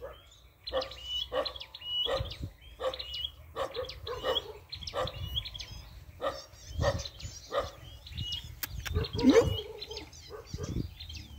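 Dog barking repeatedly, about one to two barks a second, louder about nine seconds in, while small songbirds chirp over it.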